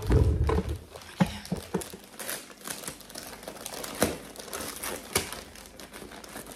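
Gift wrapping paper being handled and pulled open by hand: a run of irregular crinkles, rustles and sharp crackles, after a heavy thump right at the start.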